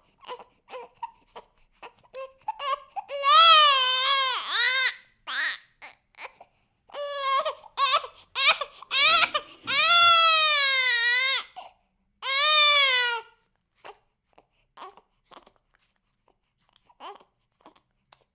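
Baby crying: several long, high wails separated by short sobbing breaths, dropping to brief, faint whimpers over the last few seconds.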